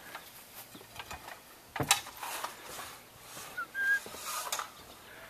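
Aluminium ladder clanking and rattling as it is handled: a sharp metallic clank about two seconds in, with lighter knocks and rattles before and after.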